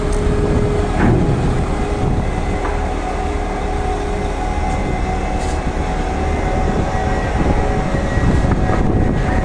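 Steady mechanical rumble of a running vehicle, with a few constant whining tones over the low drone.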